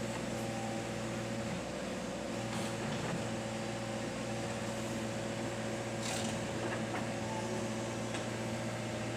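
Excavator's diesel engine running with a steady low hum and drone, with a couple of faint clicks or knocks.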